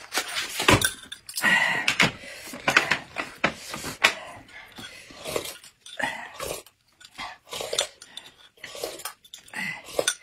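Close-miked eating sounds: slurping sips of thick corn gruel from a glass mug, with chopsticks and utensils clicking against plates and dishes.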